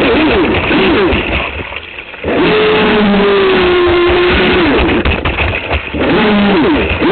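Aquacraft SV27 RC speedboat heard from on board: the motor whines at a steady pitch over water rushing against the hull. The motor drops away briefly about two seconds in and comes back up, and its pitch sweeps down several times near the start and near the end.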